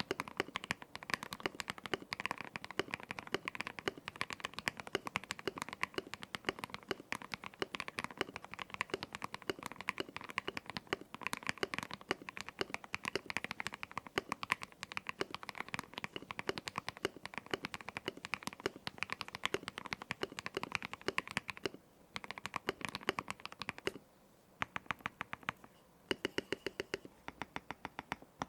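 Fast, steady typing on an Ikki68 Aurora mechanical keyboard with lubed KTT Strawberry linear switches, an aluminium plate and Milkyway PBT keycaps. There are a couple of brief pauses in the last third.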